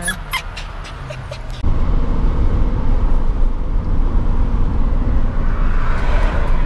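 Inside a camper van's cab on the move: steady engine and road rumble that comes in abruptly after about a second and a half, following a quieter stretch with a few light clicks.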